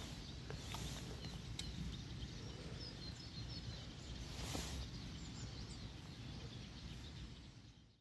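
Outdoor ambience beside a stream: small birds chirping over a low steady rumble, with a few faint clicks.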